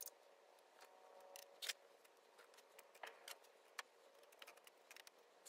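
Near silence, with faint scattered rustles and small ticks of potting soil being scooped and spread by hand.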